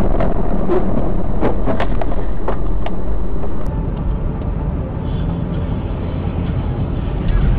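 Vehicle and road noise as picked up by a dashcam: a loud, steady rumble, with several sharp knocks in the first three seconds. It changes abruptly a little under four seconds in, when a quieter stretch of the same kind of road noise begins.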